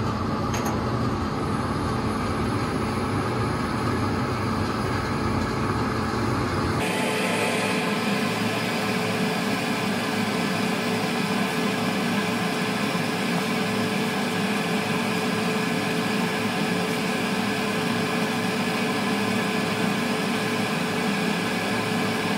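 Soldering torch flame hissing steadily over a ventilation fan's hum, heating a flux-coated brass piece and its solder chips before the solder flows. About seven seconds in the sound changes abruptly: the low rumble drops away and a brighter hiss takes over.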